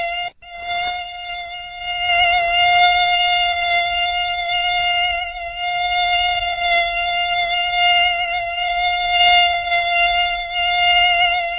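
Mosquito in flight, its wings making a steady, high-pitched whining buzz that wavers slightly in pitch. It cuts out for an instant just after the start, then resumes without a break.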